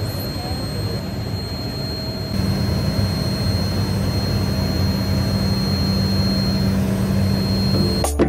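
Loud cabin noise inside an Embraer Phenom 100 light jet in flight: the steady rush of its twin turbofan engines and airflow, with a thin high whine over it. It gets a little louder about two seconds in.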